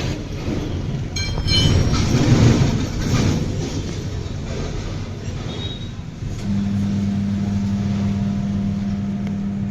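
Tyre changer machine running as a car tyre is worked onto its rim. For the first few seconds there is rumbling and clanking, then from about six and a half seconds in the motor settles into a steady hum.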